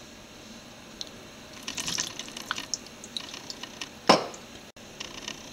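Raw boneless chicken pieces being put into a stainless steel pan of cut breadfruit: soft wet slaps and light clicks, with one louder thump about four seconds in.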